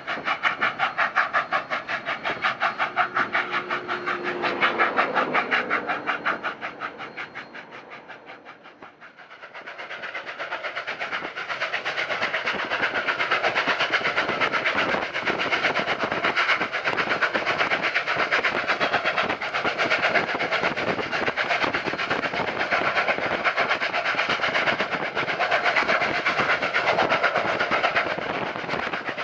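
Union Pacific 844, a 4-8-4 steam locomotive, running past at speed with fast, rhythmic exhaust beats and the clatter of the train. The sound fades away about eight seconds in, then changes suddenly to a louder, denser exhaust and running noise that holds steady.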